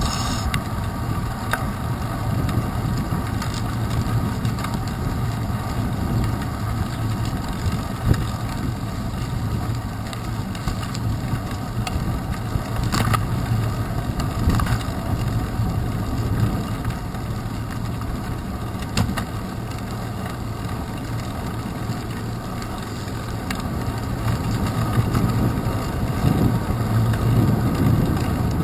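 Riding noise from a bicycle on wet pavement, picked up by a handlebar-mounted GoPro Hero 2: a steady low rumble of wind and rolling tyres, with a few sharp knocks along the way. The rumble grows louder near the end.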